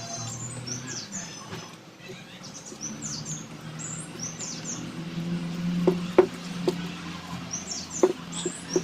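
Small birds chirping in the background, and from about six seconds in, a run of close, sharp clicks of chewing and lip smacking while eating.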